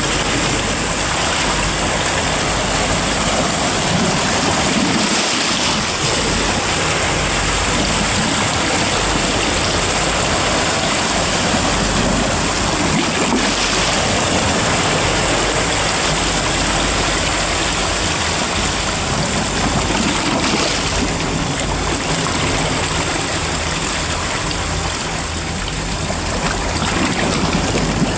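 Sea surf washing steadily: a continuous rush of water noise, with no separate wave breaks standing out.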